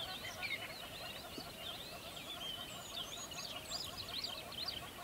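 A dense chorus of many birds chirping and whistling, with calls overlapping without a break.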